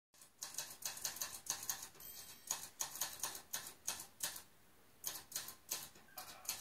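Quiet intro of a music track played through Allison CD6 loudspeakers: a quick, even rhythm of crisp high percussion ticks, broken by a short pause about four and a half seconds in.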